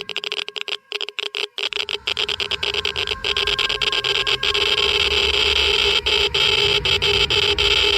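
Geiger counter clicking at a very high rate, the clicks running together into a dense crackle. After about three seconds it grows louder and thicker, close to a steady buzz, the sign of a strong radiation field.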